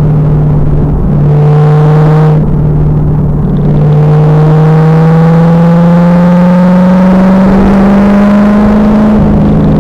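2000 Pontiac Trans Am Firehawk's LS1 V8 running hard on track. After two brief dips in the first few seconds, its note climbs steadily through a gear, then drops just before the end. The sound is loud and rough, picked up by a rear-mounted camera.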